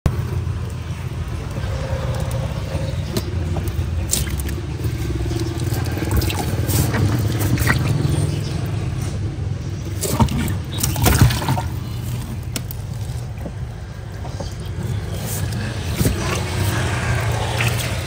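Steady low rumble, with water splashing and knocking around ten seconds in as a large frog is handled and lifted out of a shallow water tank.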